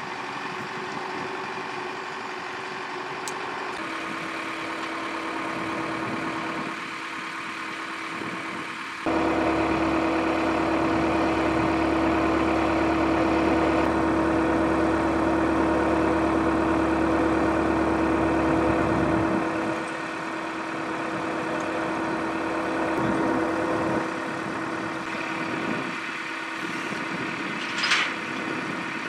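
Diesel engine of a backhoe loader running steadily with a held drone; it grows much louder about nine seconds in and drops back about ten seconds later. A short sharp sound near the end.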